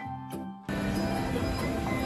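Short intro jingle of light struck, chiming notes, cut off abruptly under a second in by the steady noise of a busy railway station concourse.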